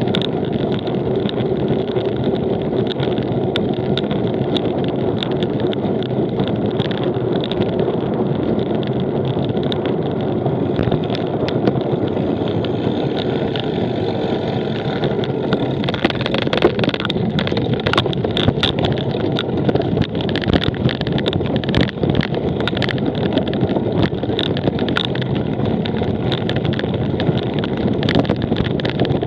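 Steady wind rush over the microphone, with the rattle and sharp knocks of a cyclocross bike ridden over rough ground; the knocks come thicker from about halfway through.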